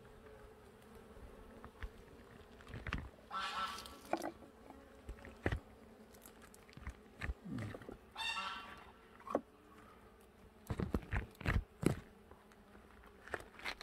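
Native Korean honeybees (Asian honeybees) buzzing at a box hive that a strong colony has filled right down to the floor, a steady low hum. Two louder raspy bursts come about 3 and 8 seconds in, and short knocks and rustles come and go, thickest near the end.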